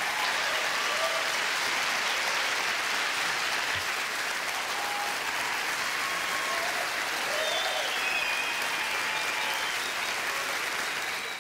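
Large audience applauding steadily, with a few voices calling out above the clapping.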